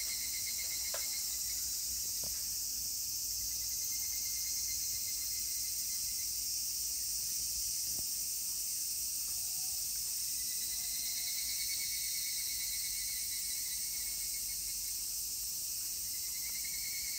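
A steady chorus of insects: a dense, high hiss with pulsing trills at a lower pitch that fade in and out every few seconds.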